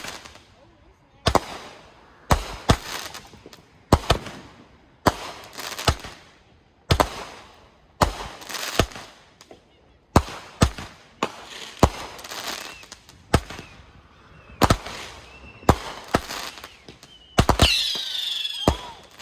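Consumer fireworks going off: a string of sharp bangs, roughly one a second, each with a short echoing tail. Near the end a wavering whistle sounds.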